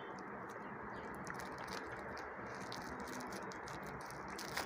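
Faint crinkling and small ticks of a thin wrapping sheet being picked open and peeled off a sweet by hand, over a low steady hiss.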